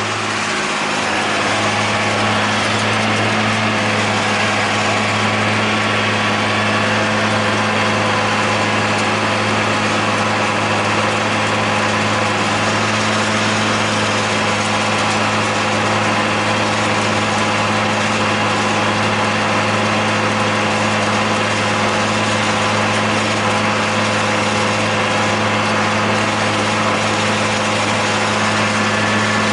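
John Deere 8100 tractor's diesel engine running at a steady, even drone, heard from inside the cab while it pulls and powers a John Deere 946 discbine cutting hay.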